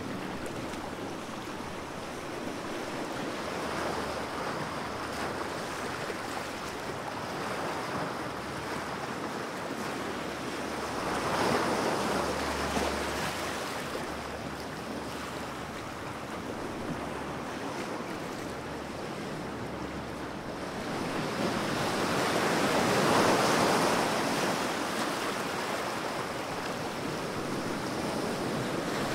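Ocean surf with steady washing noise. Waves break and swell louder twice, about eleven seconds in and again about twenty-three seconds in.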